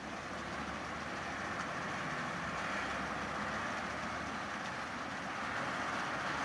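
Steady vehicle noise: a low engine rumble under a rushing hiss, slowly getting a little louder.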